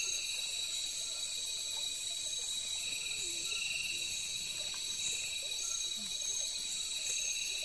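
Night-time forest insect chorus: several layers of steady high-pitched trilling, some of them in short repeated pulsing phrases.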